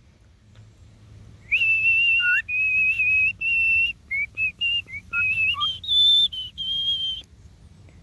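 Male cockatiel whistling its song: a run of clear, held whistled notes with short breaks and a few quick low dips, the last notes pitched higher.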